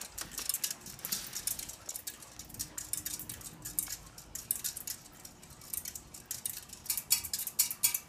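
Hunter Silent Breeze ceiling fan running on medium speed, with a faint motor hum under a rapid, irregular clicking.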